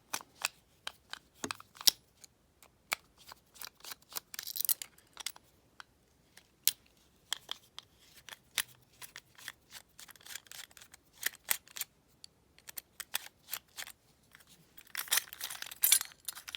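Irregular sharp metallic clicks and small clinks of a screwdriver and the thin metal parts of a cheap deadbolt lock being taken apart by hand. There are short scraping stretches about four and a half seconds in and again near the end.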